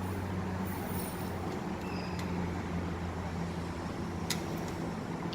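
A steady low electrical hum, with a single sharp click about four seconds in.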